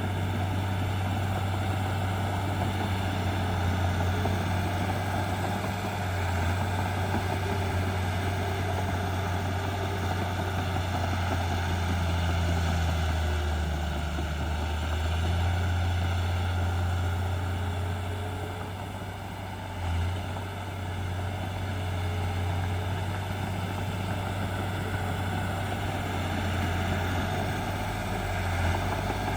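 Heavy diesel engine of earthmoving machinery running steadily with a deep drone. The engine eases off briefly about two-thirds of the way through, then picks up again with a short bump.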